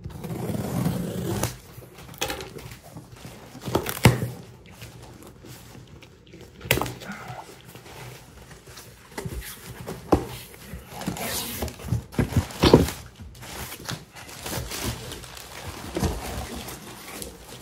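Cardboard shipping box being opened and its bubble-wrap packing pulled out: irregular rustling and crinkling with scattered sharp knocks of cardboard, the loudest about four seconds in and again around thirteen seconds.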